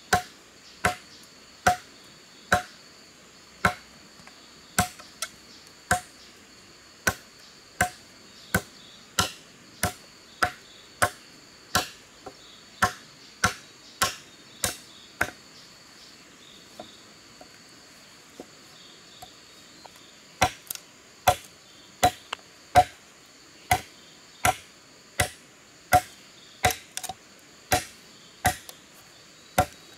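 Machete chopping into a wooden pole laid on a log: sharp, even strikes about one and a third a second, which turn fainter and sparser for a few seconds in the middle and then pick up again. A steady high insect drone runs underneath.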